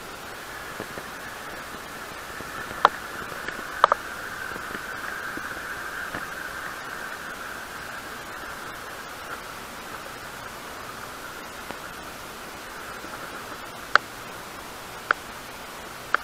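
Steady hiss with a few sharp clicks from handling a spinning rod and reel: one about three seconds in, a quick double about a second later, and three more spaced about a second apart near the end.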